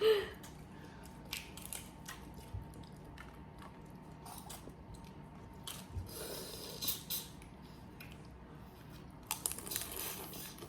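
Scattered small cracks, crunches and squishes of boiled crawfish shells being snapped and peeled, with some chewing, in short irregular bursts.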